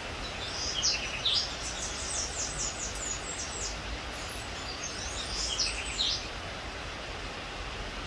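A perched hummingbird calling in high, squeaky chip notes: a fast run of a dozen or so notes in the first three seconds, then a shorter group about five seconds in, over a steady outdoor hiss and low rumble.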